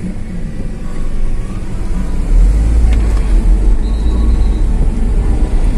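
Car driving in slow traffic, heard from inside the cabin: a steady low rumble of engine and road noise that grows heavier about two seconds in.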